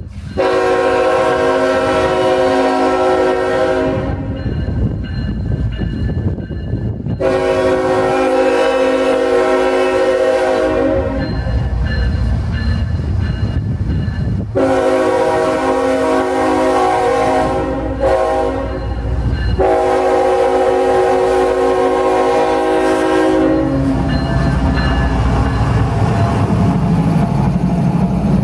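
CSX diesel locomotive air horn sounding a series of long blasts, with one short blast before the last long one: a grade-crossing warning as the train approaches the crossing. A low diesel rumble runs under the horn, and the locomotives rumble and clatter past for the last few seconds after the horn stops.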